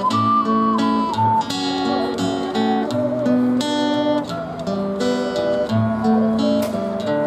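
Ocarina playing a slow melody over acoustic guitar chords. The ocarina's pure notes step downward, and the last long note is held with a light vibrato.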